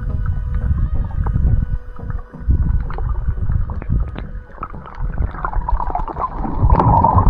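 Underwater sound picked up through a camera housing: a low, uneven rumble of water moving past the camera, with scattered clicks and knocks, growing busier and louder in the last couple of seconds.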